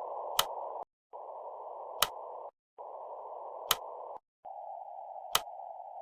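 A hiss confined to a narrow mid-range band, like receiver static heard through a CW filter. It comes in stretches of about a second and a half with three short silent breaks, and a sharp click falls about every 1.6 seconds, four in all. No Morse keying is heard yet.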